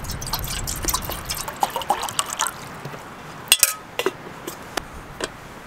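Water trickling and dripping in small splashes and plops, with a pair of sharp clicks about three and a half seconds in.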